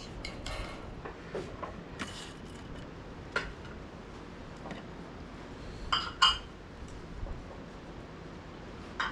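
Tableware clinking during a meal: a few sharp clinks of dishes and utensils, the loudest two close together about six seconds in.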